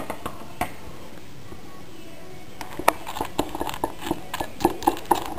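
Small wire whisk stirring a dry cookie mix in a plastic bowl: a few clicks at the start, then from about halfway in an irregular run of taps and knocks as the whisk hits the bowl.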